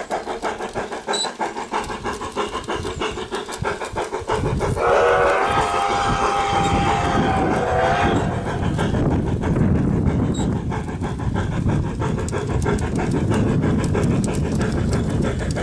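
Sound system of a Bachmann K27 large-scale model steam locomotive: rhythmic steam chuffing, then about four seconds in a multi-tone chime whistle blows for about three and a half seconds, with the running rumble of the locomotive louder from then on.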